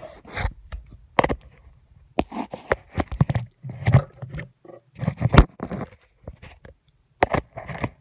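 Close-up ASMR scratching and tapping on a hard surface: irregular scrapes and sharp taps, with a pause of about a second near the end before the taps start again.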